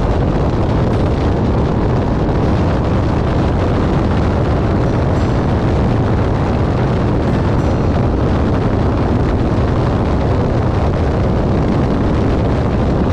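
Dodge Charger Scat Pack's 392 HEMI V8 exhaust, a loud, steady, deep rumble as the car is driven hard.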